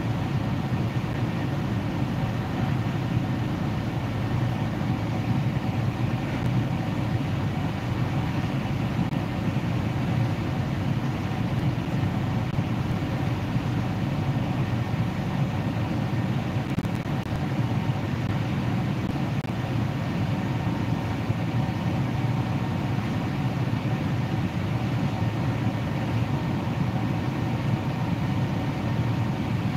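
Steady low mechanical drone with a few faint steady hum tones above it, unchanging throughout.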